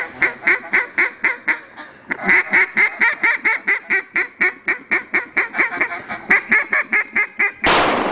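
Mallard duck call blown in a long, even run of quacks, about four to five a second, with a short break about two seconds in. A sudden loud burst of noise cuts in near the end.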